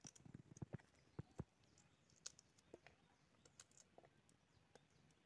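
Faint, scattered clicks and taps, the sharpest few in the first second and a half.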